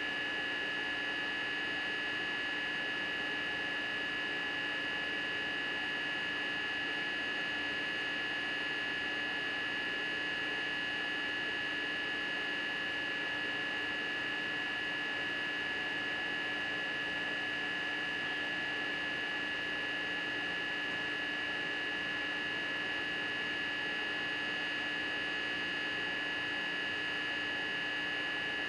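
A steady hum with a high-pitched whine above it and a faint hiss underneath, unchanging throughout.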